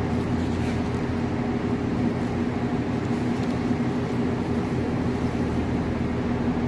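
Steady mechanical hum with a constant low drone.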